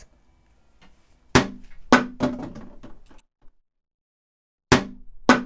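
Plastic sand toys knocking as they are set down: a few sharp hollow knocks a little over a second in, then two more near the end, with a dead-silent gap between.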